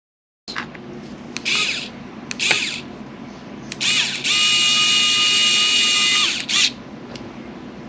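Small electric screwdriver driving screws into a laptop's chassis. Two short whirs come first, then a longer steady whine of about two seconds that winds down at the end.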